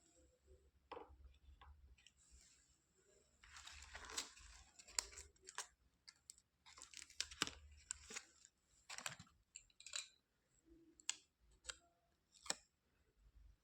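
Small plastic toys being handled: scattered sharp clicks and taps, with two short rustling stretches, one a few seconds in and one about halfway.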